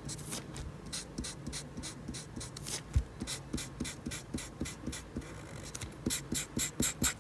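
Felt-tip marker scratching across paper in repeated short colouring strokes, coming faster near the end, over a faint low hum.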